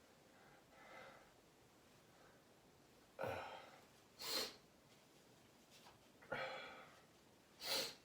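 A person sneezing twice, about three seconds apart. Each sneeze starts suddenly and fades, and is followed about a second later by a short, noisy breath.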